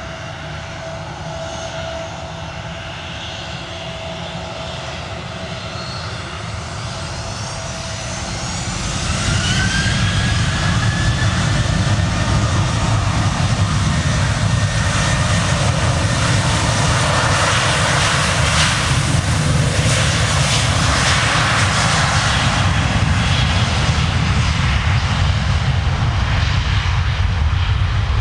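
The CFM56-7B turbofan engines of a Boeing 737-800 run up to takeoff power on the runway. A steady engine whine comes first. About nine seconds in, a rising whine and a sharp jump in loudness begin, and loud steady jet noise follows as the airliner makes its takeoff roll.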